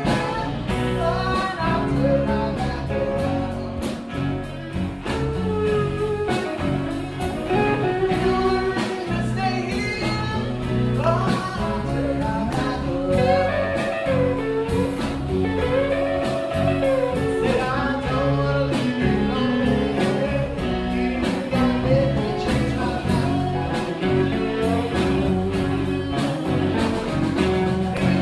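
Live blues song: a singer's voice over instrumental backing with a steady beat.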